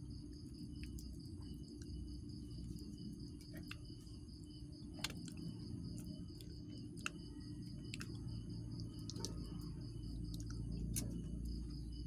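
Night insects trilling steadily in a fast, even pulse, over a low rumble, with scattered sharp clicks.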